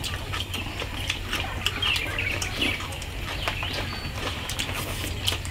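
Eating at the table: chopsticks clicking against bowls and the pot, with chewing, in a run of short irregular clicks. Birds chirp now and then in the background.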